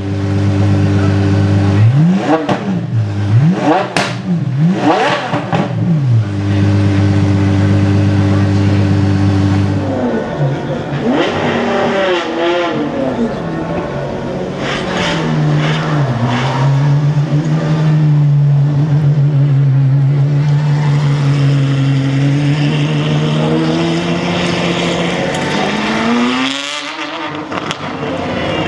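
Apollo Intensa Emozione's V12 engine idling with a steady note, blipped three times in quick succession, then idling again before a few more revs. It then settles into a lower, steady note for about ten seconds, which rises briefly near the end.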